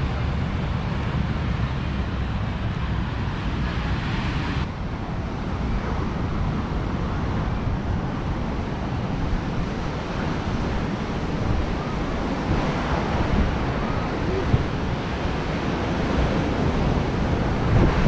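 Ocean surf breaking on a beach, mixed with wind buffeting the microphone. The sound changes abruptly about five seconds in.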